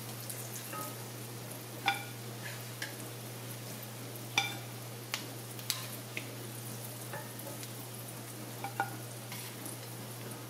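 Battered lion's mane mushroom pieces sizzling in hot olive oil in a cast iron skillet. A metal spatula clinks against the pan several times as pieces are lifted out; the sharpest, briefly ringing clinks come about two seconds and four and a half seconds in.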